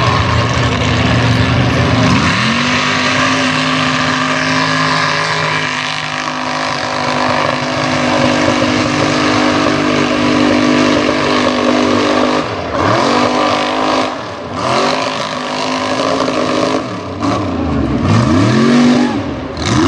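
Mega truck engine running hard under load while plowing through a mud pit, holding a steady high pitch. After about twelve seconds it revs up and down sharply several times, with brief drops as the throttle comes off.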